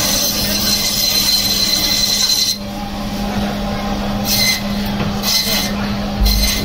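Band saw running with a steady hum as its blade cuts through pangasius catfish, flesh and backbone, with a hissing rasp. The cutting noise is heavy for the first two and a half seconds, eases off, then comes back in shorter bursts as further pieces are pushed through.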